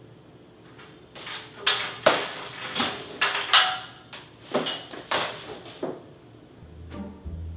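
A series of sharp knocks and clatters, about ten within four seconds, some with a short ring after them, the loudest about two seconds in.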